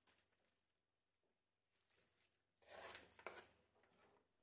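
Faint scrape of a metal spoon against a kadhai as the roasted flour mixture is scraped out, starting about two and a half seconds in and lasting about a second; otherwise near silence.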